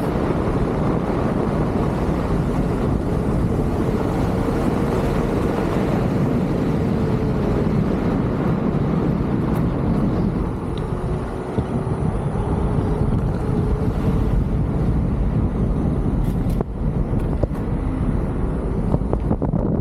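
Wind rushing over the microphone and road noise while riding a Leaperkim Lynx electric unicycle, with a faint wavering whine under it. A few light clicks come near the end.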